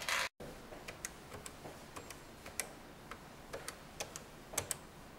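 Buttons of a push-button desk telephone clicking as a number is dialed: a dozen or so short, irregular key presses, with no dial tones heard.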